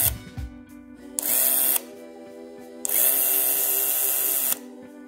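Beaulieu 4008 ZM II Super 8 camera's motor and shutter running in bursts: a brief whir about a second in, then a longer run of nearly two seconds, each starting and stopping sharply. Background music plays under it.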